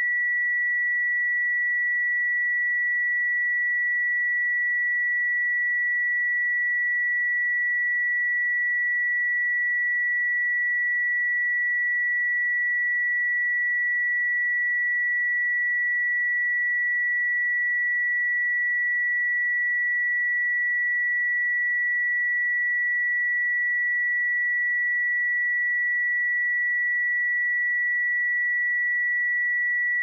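Pure 1946 Hz sine-wave test tone, one steady high-pitched note held without change.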